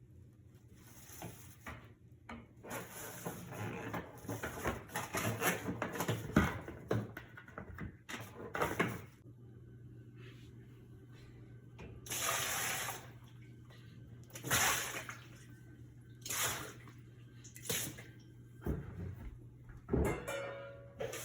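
Water running and splashing, dense in the first several seconds and then in about five short separate gushes, over a steady low hum.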